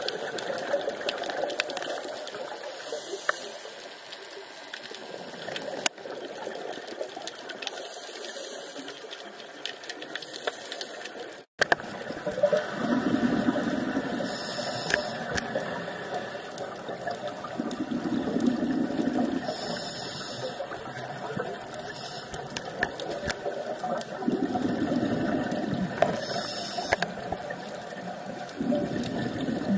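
Scuba diver's regulator breathing underwater: a short hissing inhale and a rumbling burst of exhaled bubbles, repeating about every five to six seconds over a steady underwater crackle. The sound drops out for an instant about a third of the way through.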